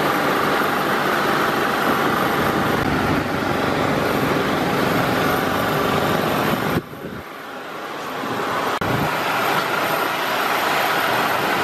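Steady machinery noise of an airport apron, a dense hum with a faint steady whine. It drops sharply about seven seconds in and builds back up over the next two seconds.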